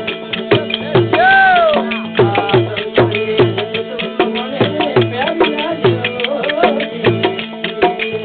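Instrumental passage of a devotional bhajan: a hand drum plays a steady beat over a held drone, with a single note that rises and falls about a second in.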